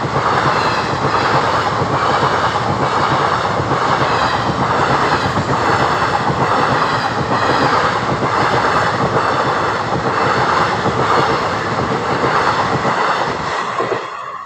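Electric multiple unit (EMU) local train running past close by: a loud, steady rush of wheels on rail with a regular pulsing clatter. The sound cuts off sharply near the end.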